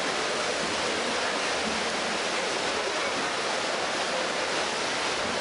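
Steady rushing, splashing water noise from several swimmers racing in a pool.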